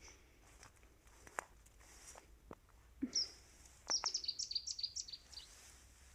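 A small songbird singing a quick run of high chirps that lasts about a second and a half, just past the middle, after a single short chirp. A few faint knocks come before it.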